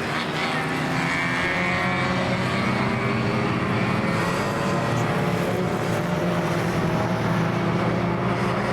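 Classic racing car engine running hard, its pitch climbing slowly and steadily as it accelerates.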